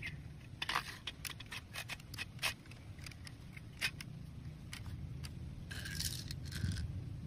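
Scattered light clicks and taps of hard plastic as a toy sniper rifle and its scope are handled, with a short scrape about six seconds in as its magazine is picked up.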